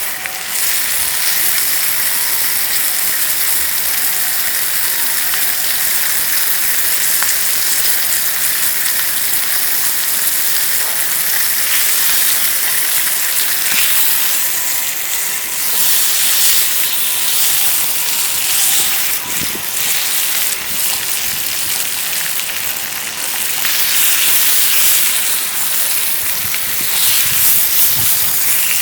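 Steady sizzling of food frying in a pan over a wood fire.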